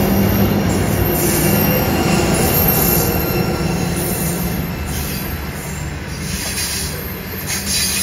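Pacific National 81 class diesel locomotive passing with its engine droning, the drone fading within the first second or so, then a string of hopper wagons rolling by. High wheel squeal comes and goes as the wagons run through the curve.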